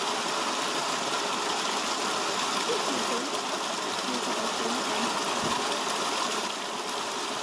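A small spring-fed cascade of water spilling over rocks into a pool: steady splashing and rushing water.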